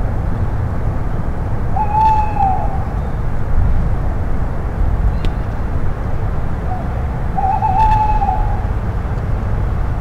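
Male tawny owl hooting its territorial song. A long hoot about two seconds in, then after a pause of several seconds a short note and a longer wavering hoot. A steady low rumble runs underneath.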